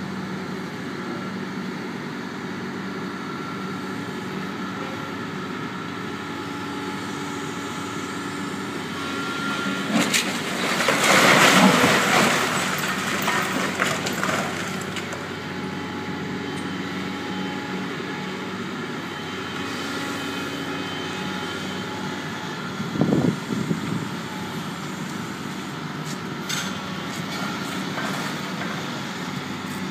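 Doosan DX300LC crawler excavator's diesel engine running steadily during demolition work, with a loud burst of crashing noise lasting a few seconds about ten seconds in and a short thud later on.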